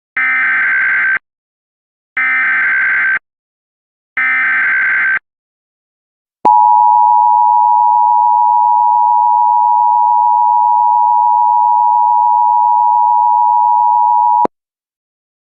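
Emergency Alert System SAME header, its digital data sounded three times for about a second each, followed by the EAS two-tone attention signal held steady for about eight seconds and cut off abruptly.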